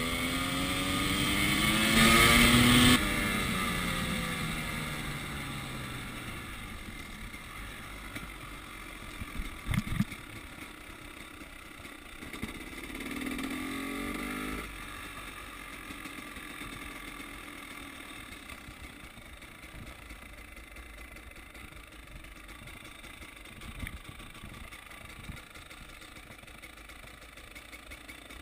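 KTM 300 XC-W two-stroke single-cylinder dirt bike engine revving up hard, loudest about two to three seconds in, then falling in pitch as the throttle closes. A short burst of revs comes about halfway through, with a couple of knocks shortly before it, and the engine then runs at low revs as the bike rolls slowly.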